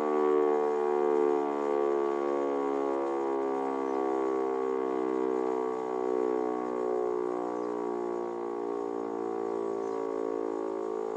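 An E57 electromechanical civil-defence siren sounding a steady, slightly wavering tone that gradually grows quieter. It is giving the fire-alarm signal during a siren test.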